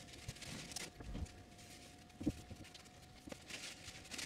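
Faint rag wiping and light knocks as metal dirt bike suspension linkage parts are handled and set down on a wooden bench, with a faint steady tone underneath.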